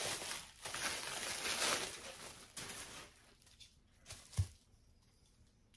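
Wrapping paper rustling and crinkling as a watch is unwrapped by hand, dying away after about two seconds. A single dull thump follows about four seconds in.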